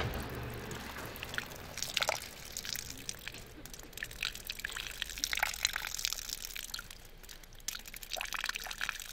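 Water from melting snow and slush dripping and trickling: many small irregular drips and wet splashes over a faint steady trickle.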